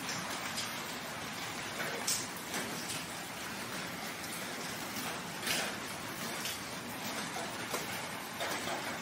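Steady rain falling, with a few louder drops splashing now and then.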